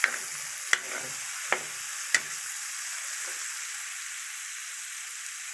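Small cubes of pork belly frying in their own rendered fat in a metal wok: a steady sizzle, with four sharp pops from the spattering fat in the first two and a half seconds.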